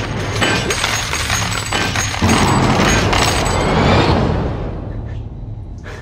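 Animated-film soundtrack: a dense run of clattering and crashing effects mixed with music. It is loud for about four seconds, then fades away.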